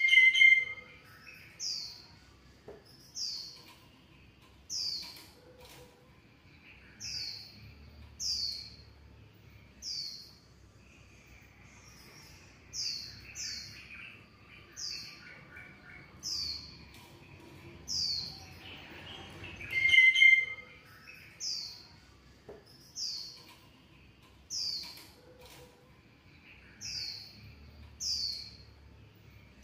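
A high chirping call, one short falling note repeated every one and a half to two seconds, with a louder, lower call at the very start and again about twenty seconds in.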